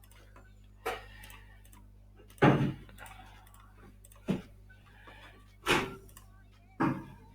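Five short, sharp knocks, unevenly spaced, over a low steady hum.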